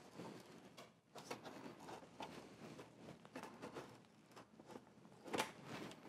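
Faint plastic clicking and scraping as a side grille is pressed into the clips of a plastic front bumper cover, with a louder click about five seconds in.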